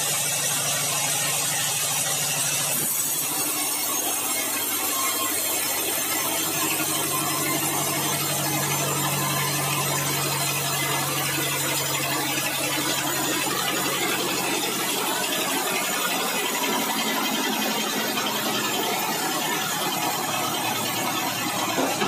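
Large vertical band sawmill (band headsaw) running with a steady, dense machine noise, sawing red meranti logs. A low hum under it fades out about two thirds of the way in.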